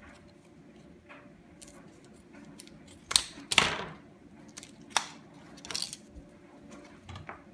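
Scissors cutting and hands prying apart a hard plastic SD card blister pack: scattered snips and plastic crackles, loudest in two bursts about three seconds in, with a sharp click about five seconds in.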